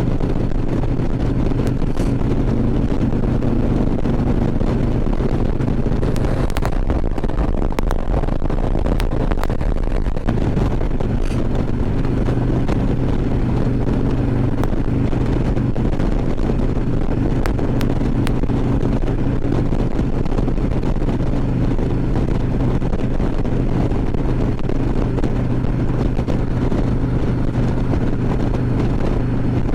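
Harley-Davidson Ultra Classic Limited V-twin engine running steadily while riding, with wind noise on the helmet microphone. The steady engine note blurs for a few seconds about seven seconds in, then settles back.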